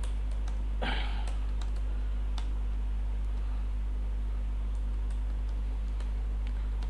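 Computer keyboard being typed on, scattered key clicks, over a steady low electrical hum, with one brief louder sound about a second in.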